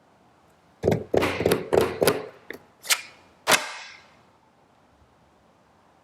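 Stock HHKB Professional Hybrid keyboard with Topre electrostatic-capacitive switches: about eight sharp keystrokes in quick, uneven succession, from about a second in until past the halfway mark.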